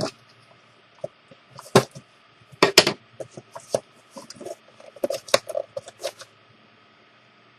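A box and its packaging being handled and opened by hand: scattered light knocks, clicks and rustles, a few of them sharper, at uneven intervals.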